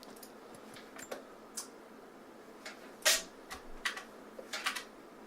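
Scattered, irregular clicks of a computer keyboard, the loudest about three seconds in.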